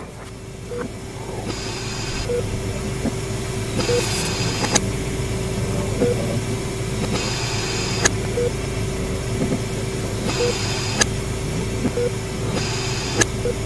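Hospital horror ambience track: a low rumble under a steady hum, a short beep every second or two, recurring hissing swells about every three seconds, and a few sharp clicks.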